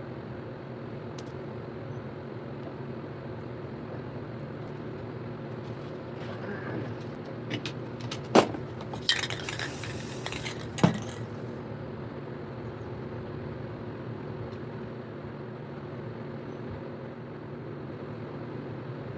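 Metal spray paint cans clinking several times and a short burst of spray hiss a little past the middle, over a steady low hum.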